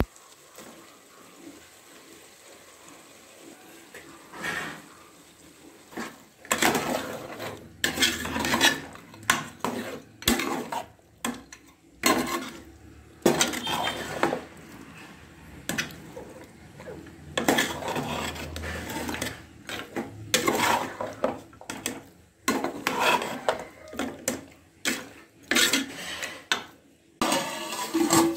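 Metal ladle stirring mutton curry in a metal cooking pot, scraping and clanking against the pot in repeated irregular strokes that start about six seconds in. Near the end a steel plate is set on the pot as a lid.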